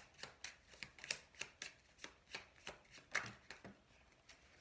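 A deck of oracle cards being shuffled by hand: a quick run of light card flicks and slaps, about four a second, that stops shortly before the end.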